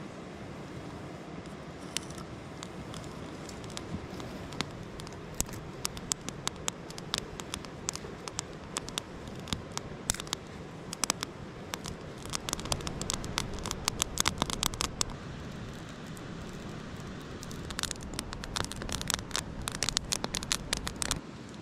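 A small fire of dry grass and twig tinder catching in a fire pit, crackling and snapping in dense spells over a steady rushing hiss.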